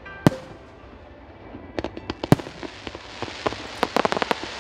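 Fireworks: two sharp bangs of shells bursting, the second, about two seconds in, the loudest. Then a quickening run of rapid crackling pops grows denser and louder toward the end.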